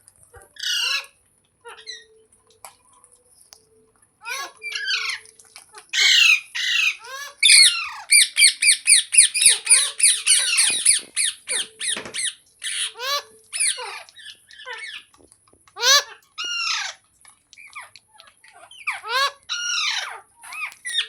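Green parrot squawking: a string of short, harsh calls, with a fast run of rapidly repeated calls about eight seconds in, then scattered single calls.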